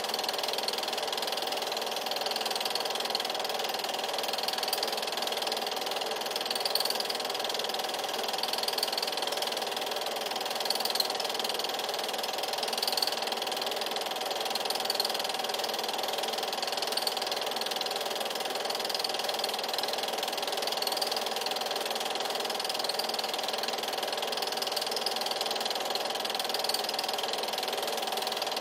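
8mm film projector running: a steady mechanical whir with a fast, even clatter from its motor and film-advance mechanism.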